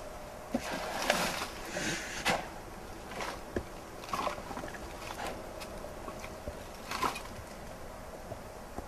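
Black bear blowing hard through its nose and mouth, then clacking and chomping its jaws in sharp, scattered clicks: a defensive warning from a bear that feels threatened.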